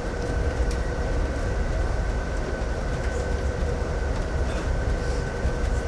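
Amtrak Empire Builder passenger train heard from inside a passenger car: a steady low rumble with a faint steady whine, and a few light ticks.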